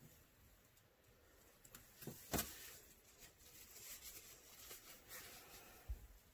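Faint handling noises of small plastic crafting tools and cups on a tabletop: a few light clicks, with one sharp tap about two and a half seconds in, some light rustling, and a soft thump near the end.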